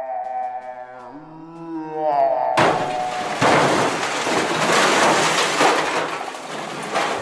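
Eerie sustained musical tones that glide upward about two seconds in, then a loud crash of breaking and shattering that lasts about four and a half seconds.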